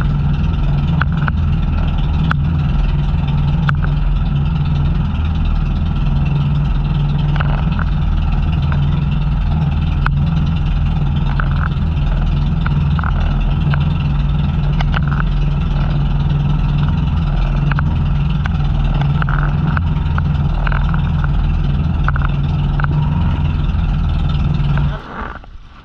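Outrigger fishing boat's engine running steadily under way, with the rush of water and wind around the hull; the engine sound stops abruptly about a second before the end.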